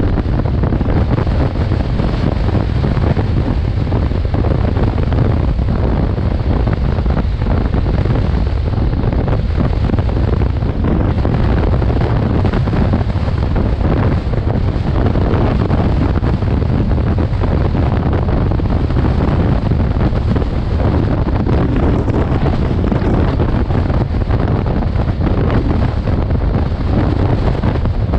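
Steady wind buffeting on the microphone of a motorcycle-mounted action camera at road speed, a heavy low rumble of rushing air that covers the bike's engine and tyre noise.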